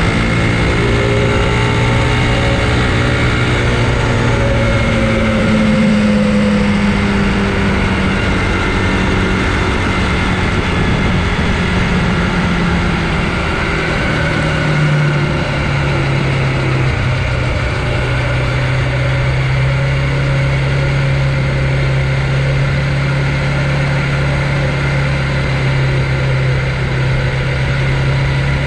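Riding noise from a Conway EMC 529 electric mountain bike on a mounted action camera: steady rumble and rush with a humming drone. The drone's pitch wanders slowly, drops about halfway through and then holds steady.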